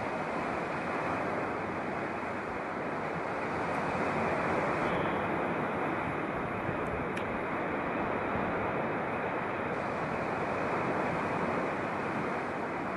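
Sea surf breaking and washing over a rocky shore below: a steady rush of waves that swells slightly about four seconds in.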